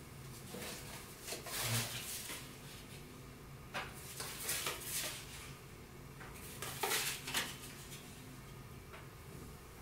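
Playing cards being handled and set in place on a house of cards: short rustles and light clicks of card against card, in three brief clusters.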